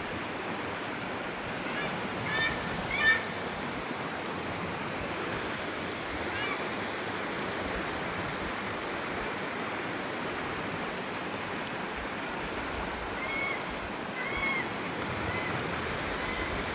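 Steady rush of a small river's running water, with a few short bird calls, the loudest about three seconds in and a couple more near the end.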